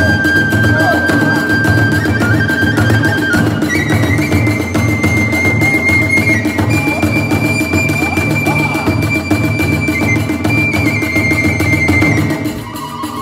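Iwami kagura music: a bamboo transverse flute holds long high notes that step up and down over fast, steady drumming with hand cymbals. The music thins briefly near the end.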